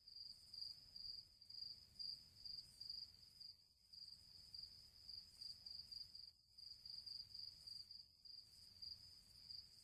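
Faint cricket chirping: a steady high trill pulsing about twice a second, over a faint low hum.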